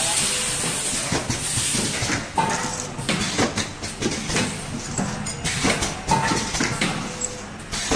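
Automatic sachet packaging machines running: repeated hissing bursts mixed with many sharp mechanical clacks, with a brief high tone that comes back about every four seconds.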